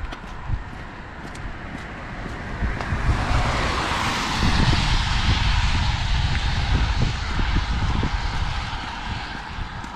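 A vehicle passing on a wet road: tyre hiss swells from about three seconds in, peaks midway and fades away near the end. Under it runs a constant low rumble of wind buffeting the microphone.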